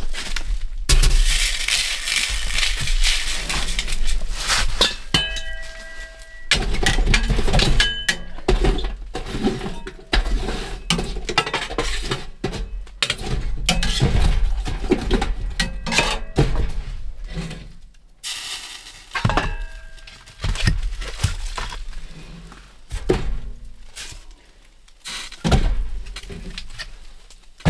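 A stainless steel camp wood stove being tended: a metal pot of snow set down on the steel stove top, then a run of clanks, knocks and short metallic rings as the stove door is worked, the embers are raked with a poker and split firewood is handled.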